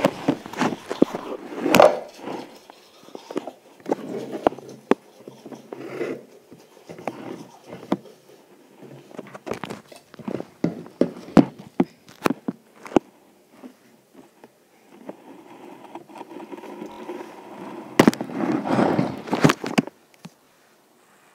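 Phone handling noise: irregular sharp knocks and taps with muffled rubbing on the microphone as the phone is moved about and its lens covered, with a longer rustle near the end.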